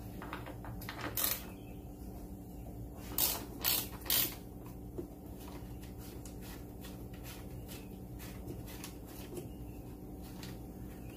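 Socket ratchet clicking as bolts are worked loose from the car's cowl panel, with a few louder clacks about a second in and again around three to four seconds in, then runs of faint rapid clicks.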